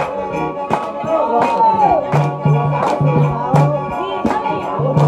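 Lao lam siphandon folk music: an ornamented, gliding vocal line over a steady held drone, with sharp percussion strikes about twice a second and a barrel drum beating a regular low pulse from about two seconds in.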